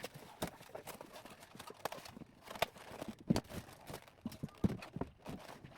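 Irregular light knocks and taps, about a dozen over a few seconds, from kitchen items being handled and set down.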